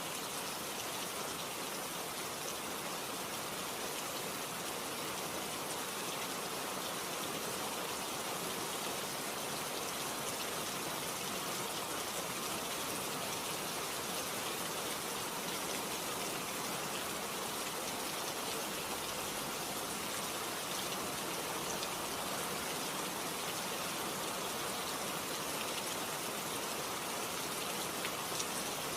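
Steady, even rain falling with a fine patter of drops.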